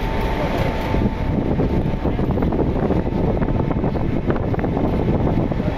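Loud, steady rumbling noise of wind and traffic on the camera microphone, with a faint steady high tone running through it.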